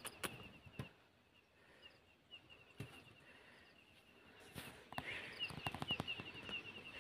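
Faint outdoor ambience: a high chirping call repeating rapidly, about six pulses a second, with scattered clicks that grow thicker and louder about five seconds in.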